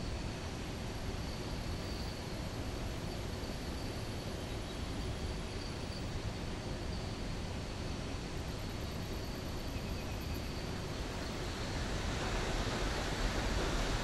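Steady rush of flowing water, growing louder and hissier about two seconds before the end.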